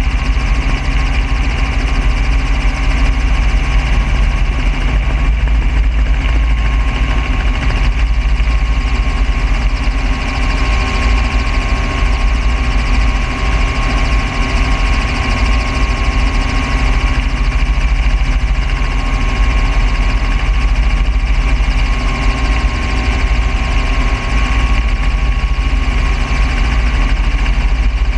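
Light helicopter's engine and rotors running steadily, heard from inside the cabin with the door open, a deep continuous rumble with a thin steady whine over it.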